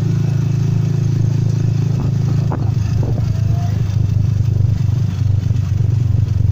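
Motorcycle engine of a passenger tricycle (motorcycle with sidecar) running steadily under way, heard close up from inside the sidecar. Its drone turns rougher about two seconds in.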